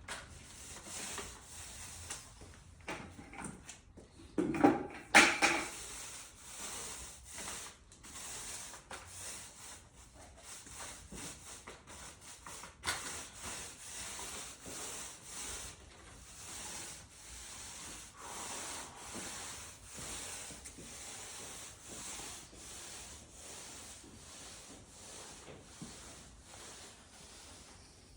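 Repeated rubbing strokes of a hand tool across a concrete slab, rising and falling about once a second, with a louder scrape about five seconds in.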